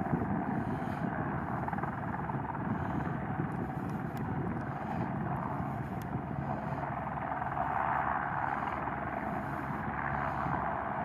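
Airbus H125M helicopter's turbine and rotor running steadily, a low drone under a broad hiss that swells about eight seconds in, as the helicopter moves after its takeoff clearance.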